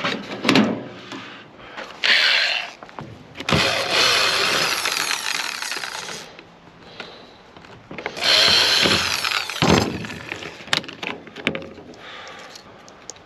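Handheld power tool running in two bursts of two to three seconds each while working the small turntable motor out of a microwave, with clicks and knocks of metal between the bursts.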